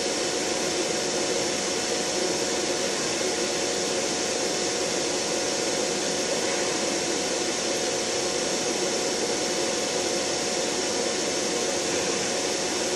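Large electric fan blowing steadily: a constant broad rushing noise with a thin steady whine underneath.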